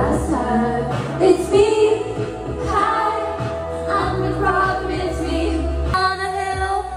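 Pop music with a woman singing over a steady bass line.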